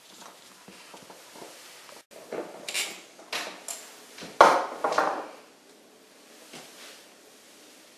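Handling noise: light clicks and knocks of a hard electronic shisha head and the metal and glass parts of a small hookah being fitted and moved about. The loudest is a sharp knock about four and a half seconds in, followed by about a second of clattering.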